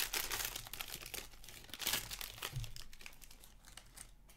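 Foil wrapper of a hockey card pack crinkling as it is torn open by hand. The crackling comes in bursts, strongest over the first two seconds, then fades.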